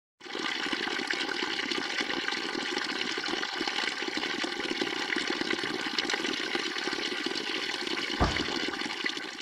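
Spring water pouring steadily from a metal pipe spout in a rock wall, falling in a thin stream. A single brief low thump comes about eight seconds in.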